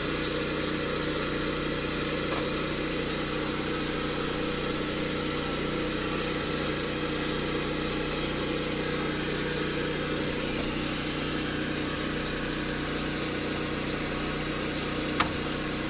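Kubota BX compact tractor's three-cylinder diesel engine idling steadily, with one short sharp click near the end.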